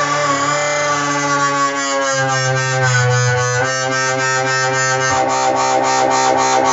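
Native Instruments Massive software synthesizer playing sustained, overtone-rich notes over a held bass, with a fast regular pulsing in the upper range. The pitch bends down about three seconds in, and the bass note steps about two and five seconds in.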